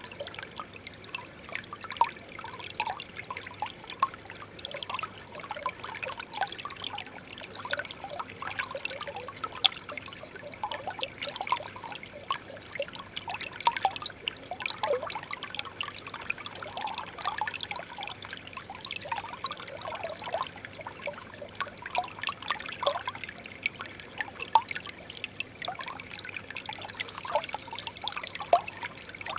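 Shallow stream water trickling and gurgling over stones: a steady wash dotted with many small plops and bubbling sounds.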